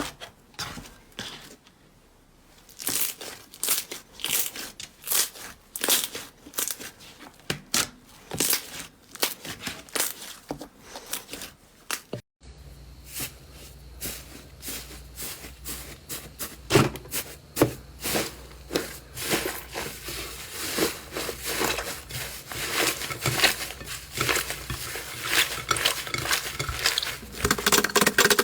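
Slime being squeezed, pressed and stretched by hand, giving dense sticky crackling and popping clicks. It breaks off abruptly about 12 seconds in and resumes with a faint low hum underneath, growing busier toward the end.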